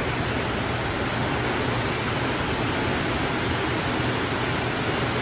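Torrential rain pouring down, a steady, dense hiss with no let-up.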